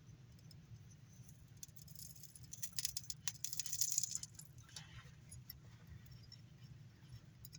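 Rosin flux crackling and sizzling under a soldering iron as a joint is heated, louder for a couple of seconds around the middle, with scattered small clicks and a steady low hum.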